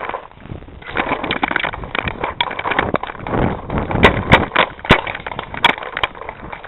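Running footsteps crunching and crashing through dry fallen leaves and undergrowth, with a handful of sharp, loud cracks about four to six seconds in.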